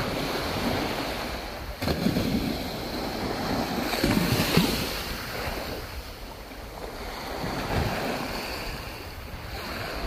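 Small waves washing and breaking on a sandy shore, with wind buffeting the microphone in stretches.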